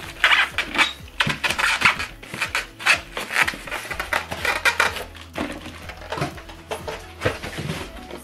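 Unpacking noises: a polystyrene foam packing block pulled off two plastic-wrapped speakers, with irregular rustling of plastic bags and light knocks and scrapes as the speakers are handled and set down.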